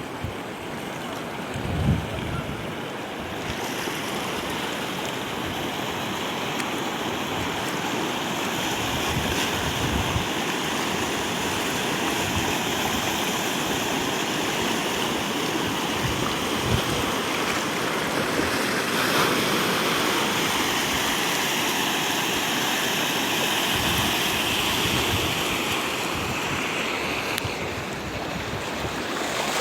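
Floodwater rushing in a steady, even stream of noise, with wind buffeting the microphone in scattered low thumps.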